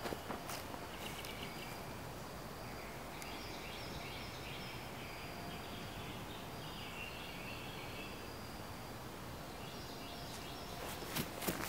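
Outdoor ambience: a steady background hiss with faint high-pitched animal calls, such as distant birds or insects, through the middle seconds. Footsteps on concrete start near the end.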